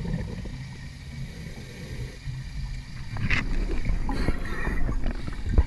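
Underwater sound picked up by a diver's camera: a steady low rumble of water noise, with a sharp click just over three seconds in and a rush of hissing noise shortly after.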